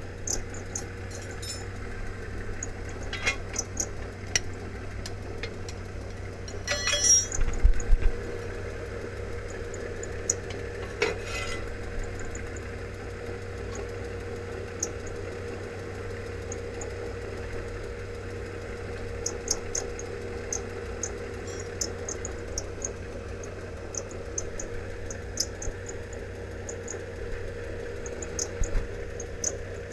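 Scattered metallic clinks and ticks of steel tools and jack gear being handled on a concrete floor, with one louder ringing clank about seven seconds in and a smaller one a few seconds later, over a steady low hum.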